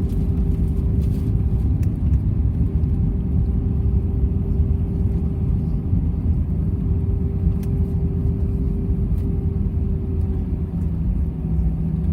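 Airbus A320 cabin noise heard from a window seat, a steady low rumble of the jet engines and the airframe rolling on the ground after landing. A steady hum fades out about ten seconds in, and a lower hum starts near the end.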